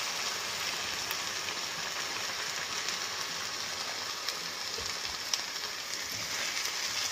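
Steady sizzling hiss from a pan of frying broccoli and potatoes as water is poured into the hot oil, with a few small clicks.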